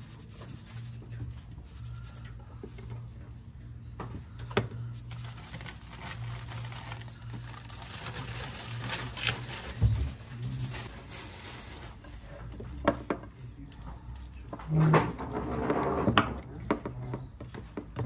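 Hands rubbing salt and pepper into raw lamb shanks and turning them on a ceramic plate, with a few short knocks of meat against the plate, over a steady low hum.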